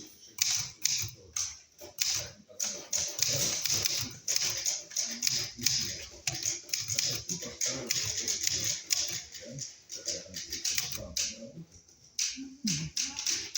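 Typewriter keys clacking in quick, uneven strokes, with a short pause about eleven seconds in before the typing resumes.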